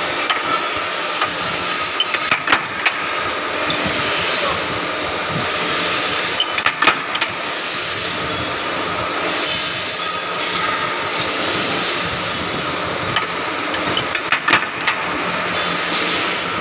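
Mechanical power press running, its big flywheel and crank spinning with a steady metallic rattling rumble. A few bursts of sharp metallic clanks break through, about two seconds in, about seven seconds in, and near the end.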